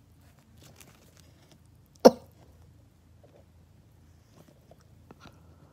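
A person coughing once, sharply, about two seconds in, with a mouthful of sandwich, amid faint small mouth noises over a low, steady hum.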